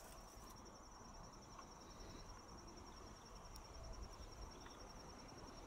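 Near silence with a faint, steady cricket trill and a couple of light clicks from hose fittings being handled.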